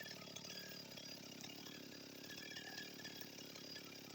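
Husqvarna 55 Rancher two-stroke chainsaw running steadily, fitted with a new cylinder and piston whose rings have not yet bedded in.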